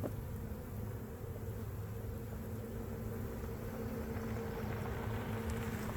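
Honey bees buzzing around an open hive: a steady hum holding a couple of low pitches, over a low rumble.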